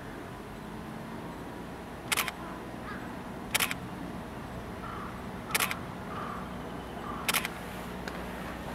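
A single-lens reflex camera's shutter firing four times, one and a half to two seconds apart, each a quick double click, over a low steady hum.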